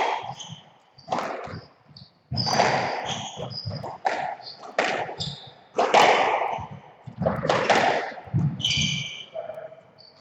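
Squash rally: sharp cracks of the ball struck by rackets and hitting the court walls, roughly once a second, with players' shoes squeaking and scuffing on the wooden floor.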